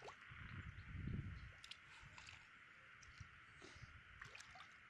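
Faint sloshing and squelching of hands feeling through a shallow muddy puddle for fish, over a steady high hiss. A low rumble, the loudest sound, comes about a second in.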